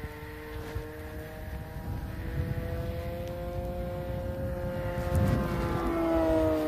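Propeller aircraft engine droning as it flies past, its pitch creeping up and then dropping about six seconds in as it passes closest, over low wind rumble on the microphone.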